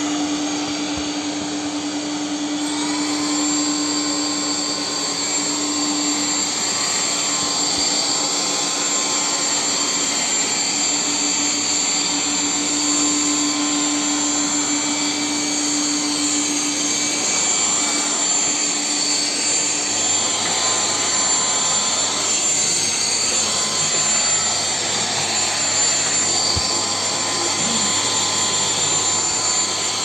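Alfawise AR182BLDC cordless stick vacuum's brushless motor running steadily with a high whine. About three seconds in, the whine glides up in pitch as the motor speeds up, then holds.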